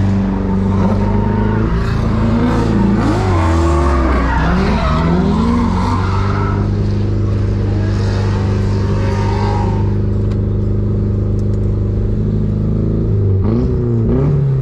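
Turbocharged Mazda Miata drift car on a tandem run, engine revving up and down with tyres squealing through the first two-thirds. The engine then settles to a steady drone before the revs swing again near the end.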